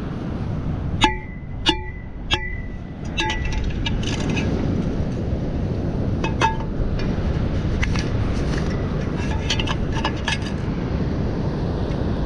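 Three ringing clinks about half a second apart, a second in, then scattered lighter clicks and ticks, over a steady rush of wind noise.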